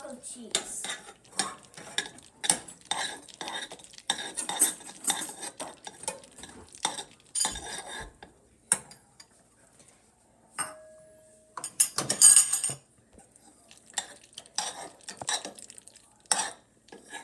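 Metal spoon stirring macaroni and cheese in a small stainless steel saucepan, scraping and clinking against the pot's sides and bottom in quick irregular strokes. The stirring stops briefly about ten seconds in, when a short steady tone sounds, then picks up again with a dense run of scraping.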